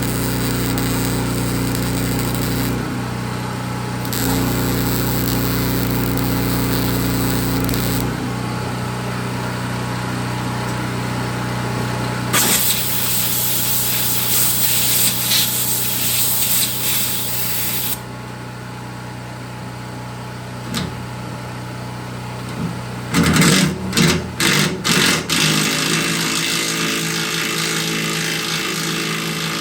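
Power tools working on steel in several cut-together stretches. A steady motor whine runs through the first part, a harsher hissing stretch comes in the middle, and near the end there are short repeated bursts from an impact wrench backing out broken body bolts that have welded-on nuts.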